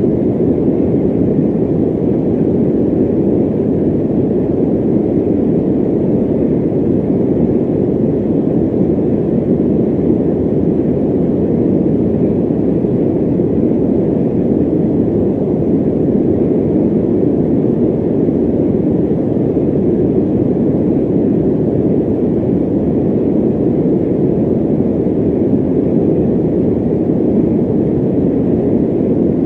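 Electric fan running: a steady, even rushing noise, mostly low in pitch, with no hum or rattle.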